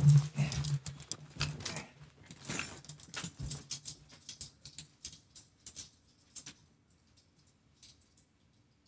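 Clothes rustling and a quick run of small clicks and knocks as two people take off headphones, pull off their shirts and walk out of the room. The sounds thin out and fade away after about six seconds, with a couple of faint clicks near the end.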